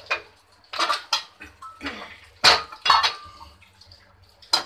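A non-stick frying pan being set down and shifted on the metal grate of a gas stove while the burner is lit: a string of sharp metal clatters and knocks, the loudest about halfway through.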